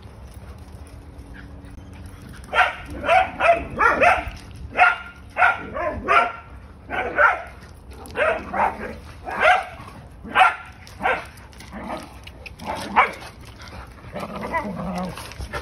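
Dogs at play barking in a rapid series of short barks, about one or two a second, starting about two and a half seconds in and turning softer near the end.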